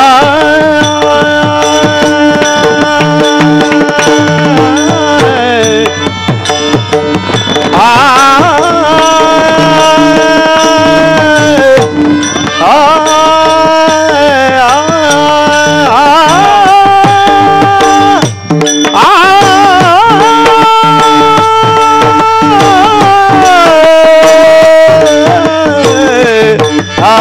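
Devotional kirtan music: a singer holds long, sliding vocal notes over a steady drone while tabla keeps a continuous beat.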